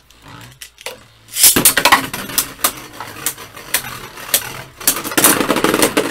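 Beyblade Burst spinning tops clattering and clashing in a plastic stadium, a second top launched with a ripcord about a second and a half in, then many sharp knocks and scraping as they collide. The battle ends in a burst, one top knocked apart into pieces.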